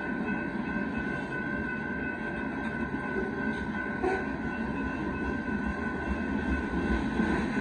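Union Pacific rock train's freight cars rolling past a grade crossing, a continuous rumble and rattle of wheels on the rails with a steady high tone running through it.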